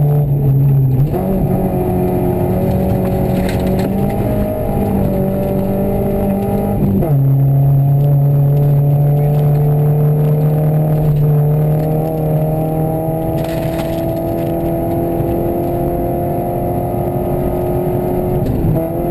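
Rally car engine heard from inside the cabin, pulling hard on a snowy stage. Its pitch jumps up about a second in and drops sharply about seven seconds in with gear changes, then climbs slowly under acceleration and jumps up again near the end.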